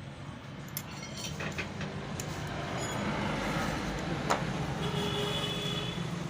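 A motor vehicle's engine running steadily, growing louder over the first few seconds, with a sharp click about four seconds in.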